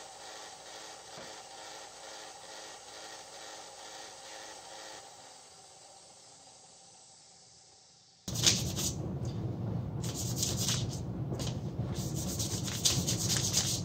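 Hand sanding a spring-steel knife blade: irregular back-and-forth rasping strokes of abrasive on metal, starting abruptly about eight seconds in. Before that, a faint steady machine hum from the grinder dies away.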